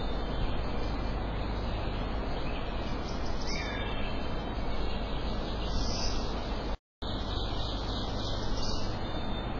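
Steady background hiss with a low hum and a few faint chirps. The sound drops out completely for a moment about seven seconds in.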